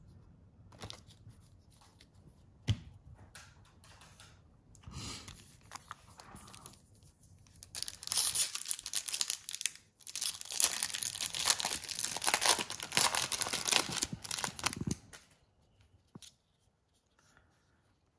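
Foil wrapper of a Topps baseball card pack being torn open and crinkled, a loud crackling rustle from about eight seconds in until about fifteen seconds. Before it, light taps and rustles of cards being handled.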